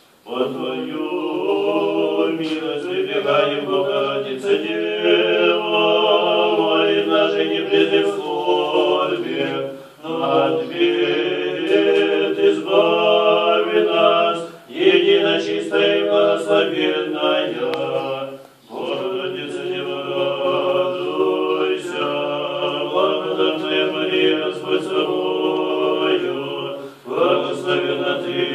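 Unaccompanied Orthodox church chant sung by a small group of voices, in long phrases with short breaks for breath.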